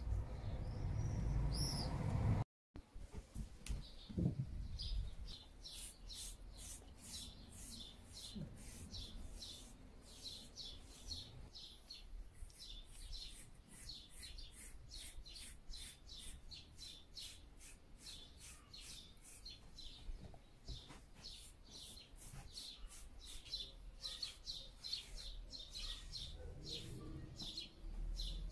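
A bird chirping over and over, short high chirps at about two a second.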